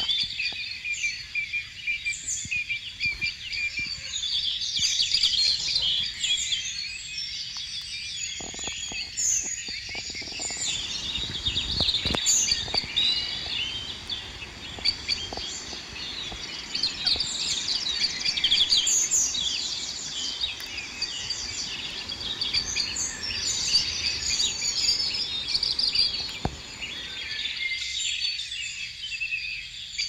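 Many birds chirping and calling over one another in a dense, high-pitched chorus that goes on without a break.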